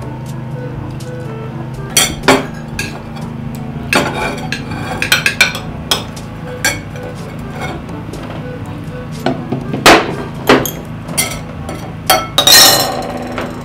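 Spoons and cutlery clinking and scraping against a bowl and plates while eating: a dozen or so sharp clinks at irregular intervals, the loudest cluster near the end. Soft background music runs underneath.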